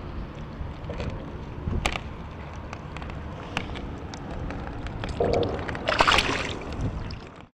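A tautog dropped back into the water over the side of a kayak, with a loud splash about six seconds in. Before it come a few sharp knocks and rustles as the fish is handled against the kayak.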